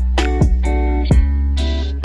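Background music led by a plucked guitar, picked notes over a low held bass.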